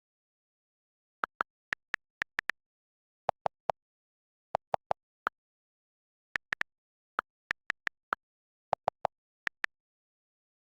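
A sparse, staccato run of very short pitched notes in small groups, stepping between a few pitches like a simple tune, over otherwise dead silence.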